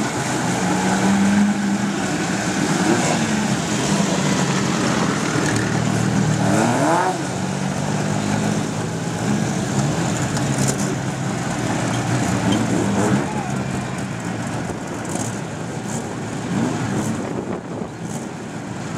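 Engines of several dirt-track race cars running and revving together, one engine rising and then falling sharply in pitch about seven seconds in.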